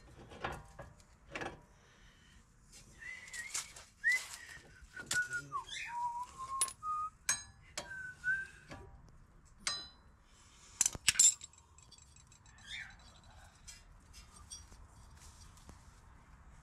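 Metal clinks and knocks of tools and steel suspension parts as a front CV axle is worked out of the wheel hub with a bar, the loudest cluster of clinks about two-thirds of the way through. A few short whistled notes, gliding up and down, come in between about three and nine seconds in.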